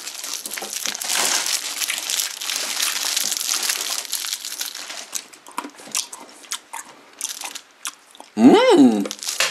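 Plastic candy wrappers and packaging crinkling and rustling as they are handled, with scattered sharp crackles in the second half. A short voiced exclamation comes near the end.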